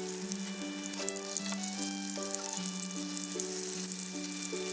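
Oil sizzling steadily in a frying pan as udon-noodle patties shallow-fry, over background music with a repeating bass line.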